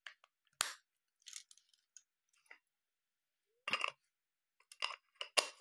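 A lens being twisted onto an Olympus OM-10 film camera's bayonet mount: scattered short metal clicks and light scrapes, a few close together near the end.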